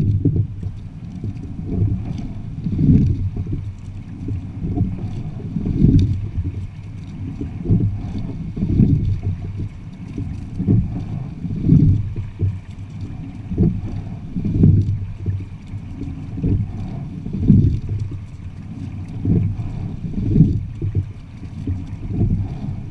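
Water rushing along the hull of a sculling quad, heard as a low rumble that swells about every three seconds with each rowing stroke.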